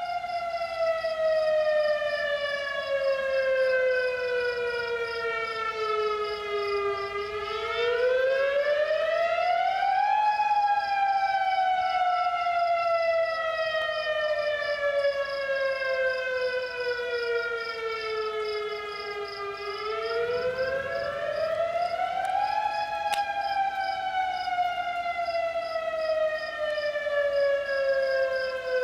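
Federal Signal DSA electronic outdoor warning siren sounding a tornado warning. Its pitch falls slowly over about ten seconds, then climbs back quickly over two or three seconds, twice, with a fainter steady tone held beneath.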